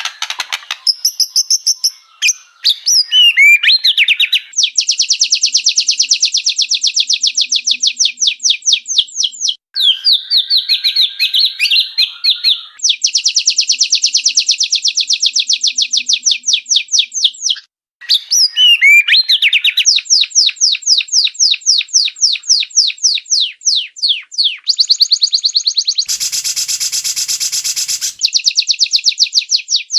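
White-rumped shama song: varied whistled phrases alternating with long, fast runs of repeated clipped high notes, then a harsh, buzzy rattle lasting about two seconds near the end.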